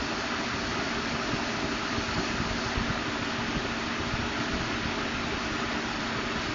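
2012 Ford F-150's 5.0 V8 running steadily, with a faint ticking or knocking in it that the owner has been told is normal injector or fuel pump noise.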